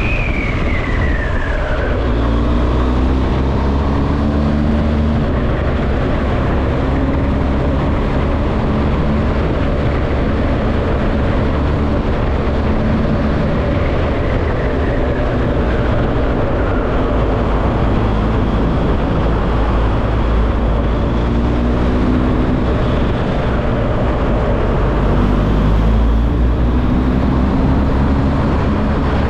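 Motorcycle at highway speed, its engine running steadily under heavy wind rush on the microphone, riding into a road tunnel among traffic. Inside the tunnel the engine pitch rises and falls a few times.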